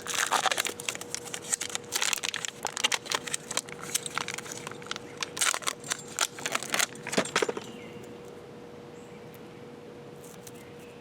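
Clicks, rattles and light crinkling from the parts of a tire plug repair kit being handled, a sharp irregular clatter that stops about seven and a half seconds in, leaving only a faint steady hum.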